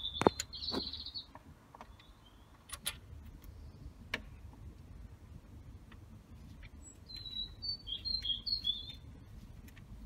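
Sharp metallic clicks and knocks from a connecting-rod cap and its bolts being fitted by hand, the loudest about a quarter of a second in. A bird chirps in quick short notes in the first second and again around eight seconds in.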